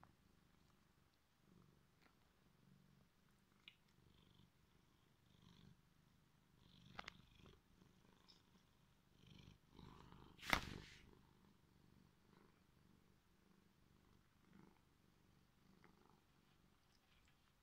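Domestic cat purring faintly and steadily, with a sharp knock about ten seconds in and a couple of small clicks shortly before it.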